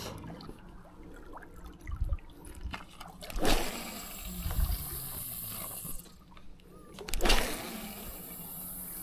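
Seawater washing against breakwater rocks, with two surges about four seconds apart, each trailing off into a hiss.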